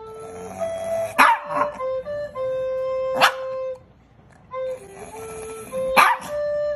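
Small dog barking sharply three times, about two seconds apart, over a background melody of held notes.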